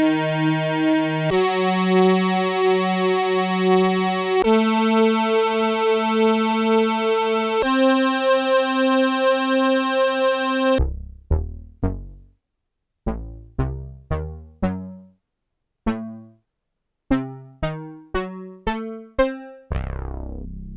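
Yamaha TX81Z four-operator FM synthesizer playing bass patches: four long held notes, each a step higher in pitch, then a dozen or so short plucked notes at varying pitches that die away quickly. Near the end a new tone starts with a falling shimmer on top.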